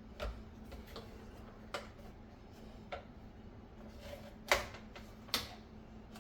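Light plastic clicks and taps as the two halves of a Chefman air fryer's door are worked apart, with two sharper clicks about four and a half and five and a half seconds in.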